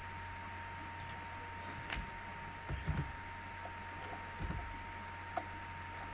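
A handful of computer keyboard key presses and mouse clicks as a search is typed, heard as scattered short clicks and soft knocks, the loudest cluster about three seconds in. Under them runs a steady low hum with a thin steady whine.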